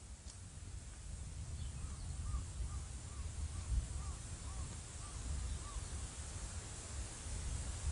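A wild animal calling: a run of about nine short, arched notes at roughly two a second, over a steady low rumble of wind on the microphone.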